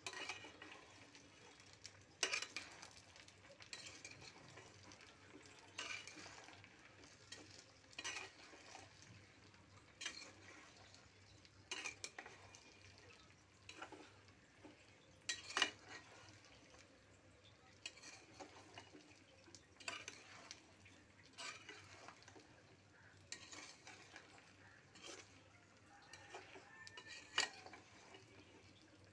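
A metal spatula scraping and clinking against a pot as whole red chilies and garlic cloves are stirred, a stroke about every two seconds.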